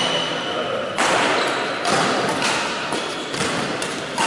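Badminton rally: racket strings striking the shuttlecock several times, roughly once a second, each sharp hit ringing on in the echo of a large sports hall.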